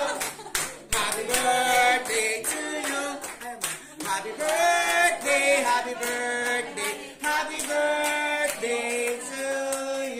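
A group of people singing together in held notes, with some hand clapping.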